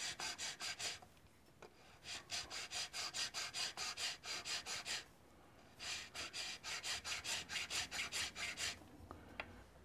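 Round file rasping back and forth on an atlatl's wooden riser, taking down a riser that sits too high for the dart. Quick even strokes, about five a second, come in three runs with short pauses between them.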